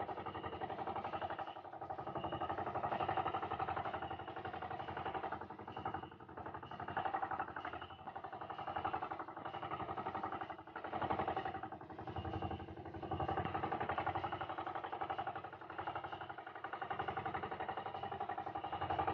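Outrigger fishing boat's engine running steadily at sea, a constant pitched hum whose loudness rises and falls every second or two.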